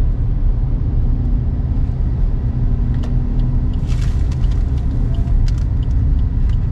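Steady low rumble of a car on the move, heard from inside: engine and road noise, with scattered light clicks and ticks in the second half.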